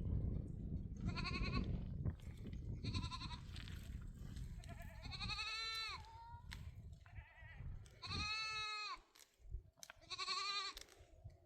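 Goats bleating, about five wavering calls spaced a second or two apart, over a low rumble that fades about halfway through.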